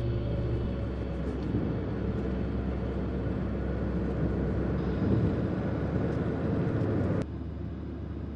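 A car driving along a road: steady engine and tyre rumble, which drops abruptly to a quieter hum about seven seconds in.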